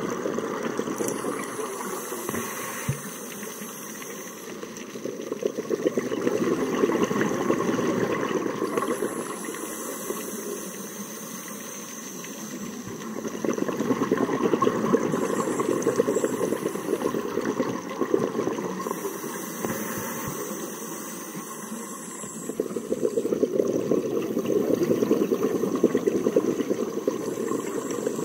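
Scuba diver breathing through a regulator underwater: a hissing inhale, then a long bubbling exhale, about three breaths in a slow cycle.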